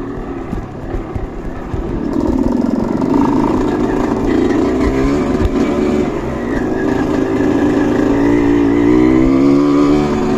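Off-road trail motorcycle engine revving under load, its pitch rising and falling with the throttle, getting louder about two seconds in.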